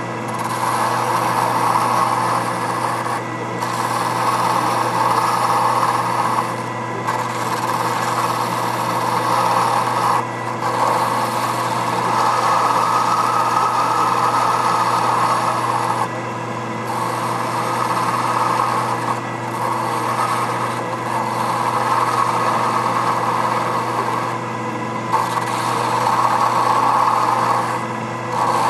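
Boley 8 mm watchmaker's lathe running with a steady motor hum while a hand-held graver cuts SM45C steel, a scraping noise in stretches of a few seconds broken by short pauses between passes.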